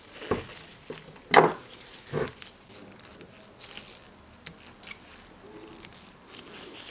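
Short metallic clicks and scrapes of a wire retaining clip being pushed into its groove on a motorcycle fork leg with a screwdriver, locking the new oil seal in place. The louder clicks come in the first two seconds or so, with fainter taps after.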